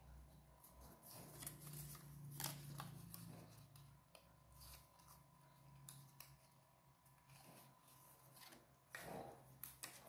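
Faint rustling and crackling of stiff printed paper strips being folded and pressed together by hand, with a few sharper crackles about two seconds in and again near the end, over a faint steady hum.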